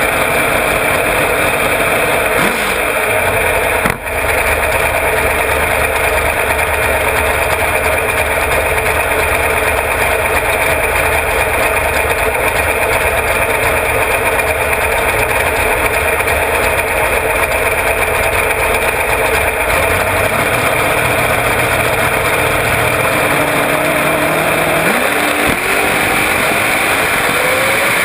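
Big-block Ford V8 in a front-engine-mounted dragster running loudly at a low, steady idle, heard close up from the car itself. Over the last few seconds a tone climbs steadily in pitch as the revs rise.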